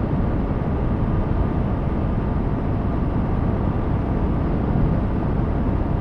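Aprilia RS 457 motorcycle riding at steady speed: a continuous rush of wind noise over the microphone with the engine running underneath, even throughout.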